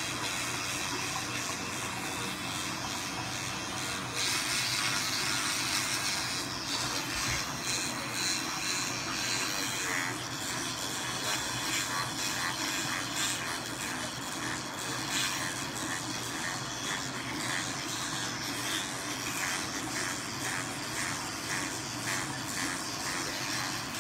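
Teeth being brushed with a toothbrush: rhythmic scrubbing strokes, a few a second, that become clearer about halfway through.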